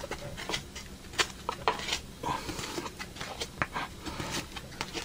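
Trading cards and a card pack being handled: irregular small clicks, ticks and rustles as cards are slid and flicked against each other.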